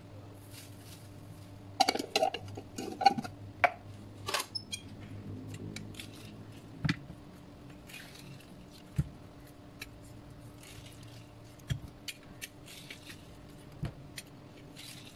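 Clinks and knocks of kitchenware handled at a stainless-steel sink: a quick run of clattering knocks a couple of seconds in, then scattered single clicks while a plastic hand-held citrus squeezer presses lime halves over chicken pieces in a plastic bowl.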